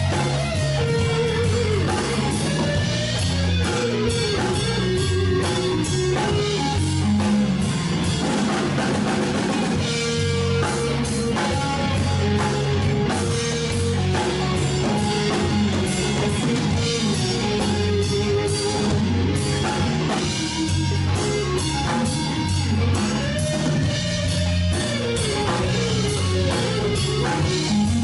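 A live blues-rock band playing: an electric guitar plays melodic lead lines with bent notes over bass guitar and a drum kit.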